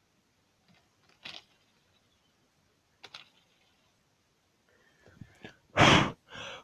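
A few faint, sharp plastic clicks from a Lego Technic car model being handled, then near the end two short, loud rushes of noise.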